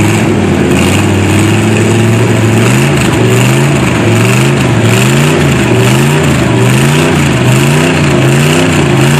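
Big-block Chevy V8 in a GMC mud truck, bogged in deep mud and running loud. It holds a fairly steady pitch for about three seconds, then revs up and down in a regular rhythm, a little faster than once a second.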